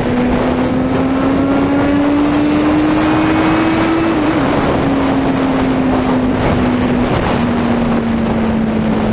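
Suzuki Bandit 650N inline-four motorcycle engine running loud with its pitch climbing steadily. About four seconds in it breaks briefly, then holds and slowly eases off, over a steady rush of wind.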